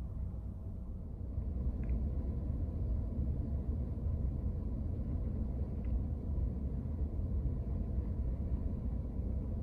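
Steady low rumble with a faint steady hum above it, getting louder about a second and a half in.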